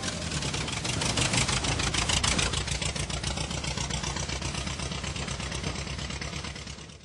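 Tractor's diesel engine running with an even, rapid chugging that slowly fades away and then cuts off.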